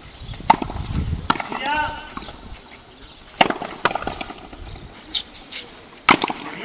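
Frontón rally: a hard ball cracking off racket strings and off the wall, about five sharp knocks a second or two apart, the loudest near the end. A short call from a voice comes in between them.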